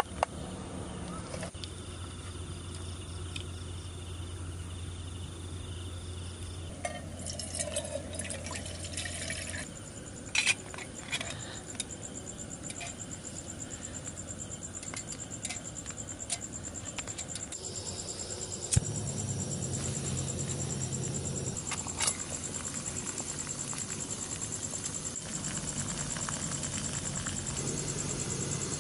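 Portable gas canister stove burning steadily under a steel pot, lit with a sharp click about two-thirds of the way through; before that, a few clicks and clinks of metal cookware being handled. Insects chirp steadily throughout.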